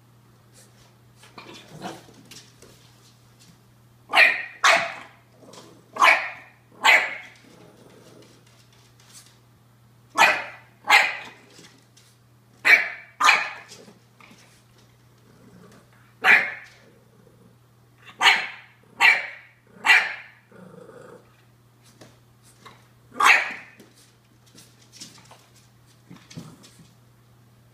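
English bulldog puppy barking, sharp high barks coming in pairs and threes with pauses between, about a dozen in all, and a short low growl a little past the middle.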